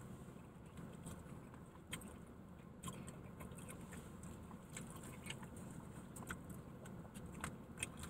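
Faint, scattered light clicks and taps of someone eating collard greens, over a low steady hum.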